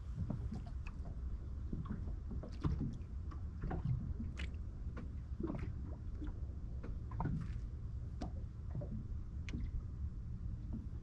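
Water lapping against the hull of a small boat: irregular light knocks and ticks over a steady low rumble.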